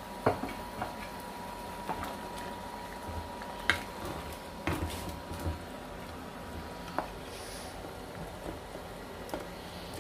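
Wooden spoon stirring a potato curry in a metal saucepan, with irregular knocks of the spoon against the pot over a steady background hiss.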